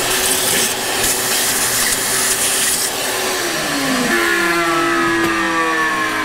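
Shop vacuum running, its nozzle sucking up cast-iron drilling chips with a loud hiss. About three seconds in the nozzle comes away, the hiss drops, and the motor's pitch slides before it settles into a steady hum.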